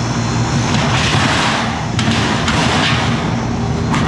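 Walk-in cooler condensing unit running, a steady rush of condenser-fan air over a low compressor hum. A few light clicks of the louvered sheet-metal cover being handled come about halfway through and near the end.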